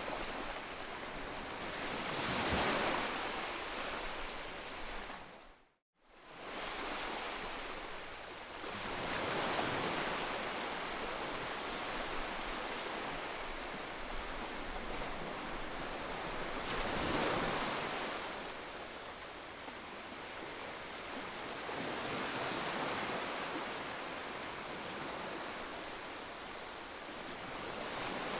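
Ocean surf: waves washing onto the shore in slow surges that swell and ebb every several seconds. About six seconds in the sound fades out briefly to silence and comes straight back, like a splice in the recording.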